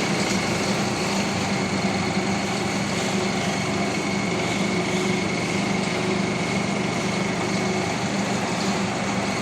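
Engine of a just-repaired Jeep running steadily at a constant speed, with a steady low hum and a thin high whine.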